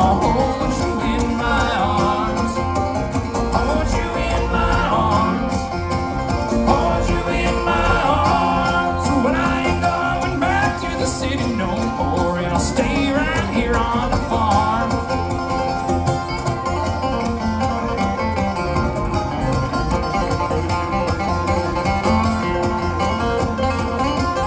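Bluegrass band playing live, with banjo, mandolin and acoustic guitar picking together.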